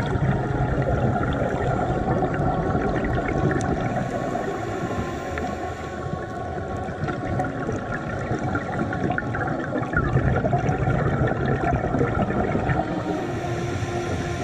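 Underwater sound of scuba diving: a muffled rumble and bubbling of exhaled regulator air, swelling and ebbing, with a fine crackling throughout.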